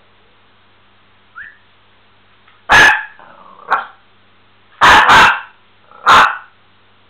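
Miniature pinscher barking in short sharp barks: one about three seconds in, a softer one just after, a quick pair near five seconds and one more a second later.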